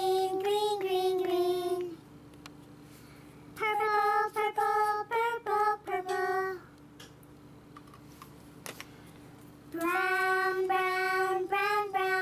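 A high voice, child-like, singing three short phrases of several notes each, with pauses between; a faint steady hum fills the pauses.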